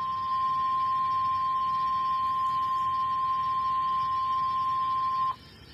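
NOAA Weather Radio 1050 Hz warning alarm tone: a single steady high tone over faint radio hiss that cuts off suddenly about five seconds in. It signals that a warning message follows.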